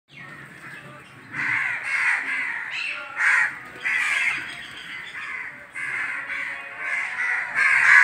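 Crows cawing repeatedly: a string of harsh calls, starting about a second in and coming roughly every second.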